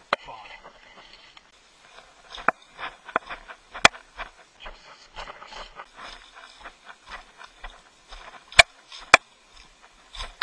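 Footsteps crunching and rustling over dry fallen leaves and rocky ground, with a few short sharp clicks and knocks, the loudest a pair about half a second apart near the end.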